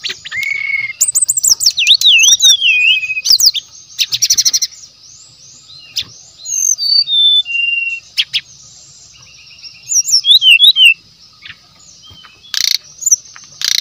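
Brown-chested jungle flycatcher singing in bursts of varied quick whistled notes, sliding up and down, mixed with rapid rattling trills. A quieter stretch of scattered notes falls in the middle. A steady high hiss runs behind.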